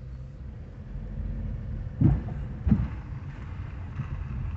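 Car interior while driving slowly on a rough gravel road: a steady low rumble of engine and tyres, with two heavy thumps about two seconds in, half a second apart, as the car jolts over bumps.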